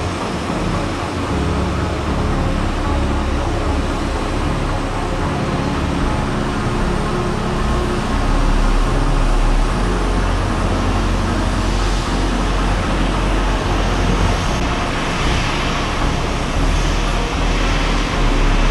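Jet engine noise from an arriving Boeing 737-800 with CFM56 engines: a steady rushing noise with a deep rumble that grows louder about halfway through.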